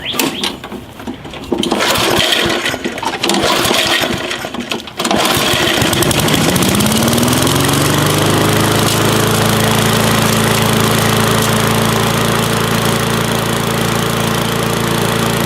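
Gas push mower's small engine starting: a few seconds of rough, uneven noise, then about five seconds in it catches and climbs in pitch up to speed, then runs steadily. It is running again after its carburetor, clogged by stale ethanol gas, was cleaned out.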